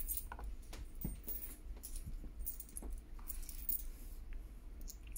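Scattered light clicks and rustles of hands working a laptop's touchpad and handling it, over a low steady hum.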